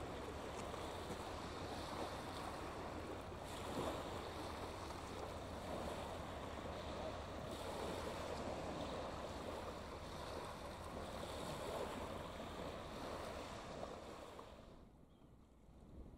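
Small waves lapping and washing over a shingle beach, a steady hiss that swells and eases every few seconds, then drops sharply to a faint hush near the end.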